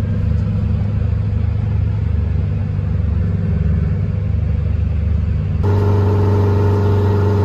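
1972 GMC Astro's Detroit Diesel two-stroke engine running steadily under load while the truck drives along in a very low gear. About five and a half seconds in, the drone jumps a little louder, with a clearer, steadier hum.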